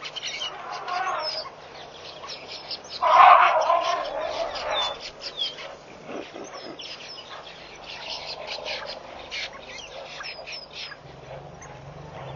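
Wild birds chirping and calling around a waterhole, many short high calls, with one louder, lower call about three seconds in that lasts about two seconds.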